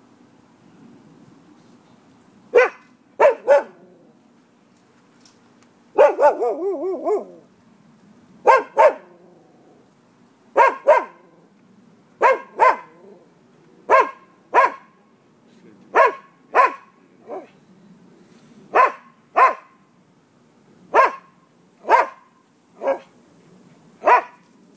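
A dog barking repeatedly, mostly in pairs of sharp barks about every two seconds, with a quick run of barks about six seconds in.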